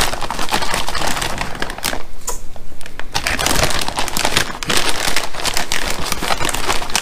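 Plastic zip-top bag crinkling and rustling in irregular crackles as gloved hands handle it to pour dry breading mix into a bowl.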